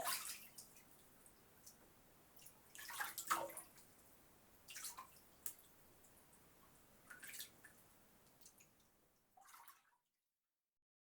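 Bath water sloshing and splashing as a person moves in a filled bathtub, in several separate splashes with drips between them, until the sound cuts off near the end.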